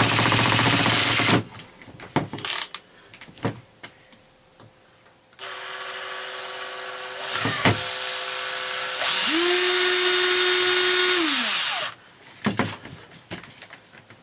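Electric drill motor running in three bursts: briefly at the start, again from about five seconds in, and louder from about nine seconds, winding down to a stop near twelve seconds. Clicks and taps fall between the runs. The drill is backing out the reverse-threaded screw inside a drill chuck.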